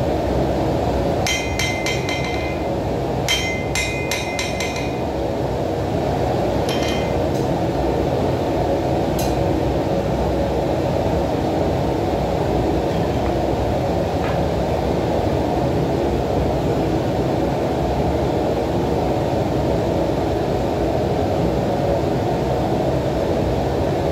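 Hand hammer striking hot knife steel on an anvil with a bright ring: a few blows, then a quick run of strikes, then a few spaced single blows, with the hammering stopping before halfway. Under it a forge burner runs with a steady rushing noise.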